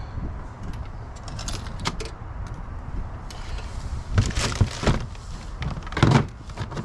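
A heavy finned metal car amplifier being lifted and set down among other amps, loose cables and plastic bags: scattered clunks, knocks and rattles. The loudest knocks come about four to five seconds in and again about six seconds in.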